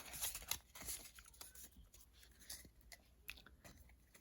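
Faint, irregular crinkling and crackling of a Pokémon booster pack's foil wrapper being torn open and handled.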